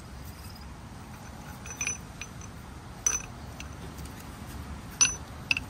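Four sharp metallic clicks and taps, about two, three, five and five and a half seconds in, as a gas valve is twisted by hand onto a threaded black gas pipe.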